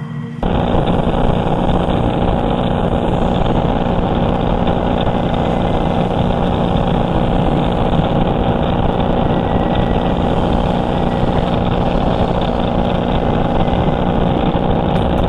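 Jetboat running at speed: a steady engine drone mixed with rushing water from the wake. It starts abruptly about half a second in and holds at one level throughout.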